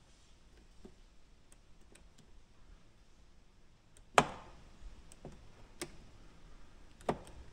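Small clicks and taps of a scale RC truck's drivetrain parts being handled and pushed into place by hand, with one sharp click about four seconds in and two smaller knocks after it.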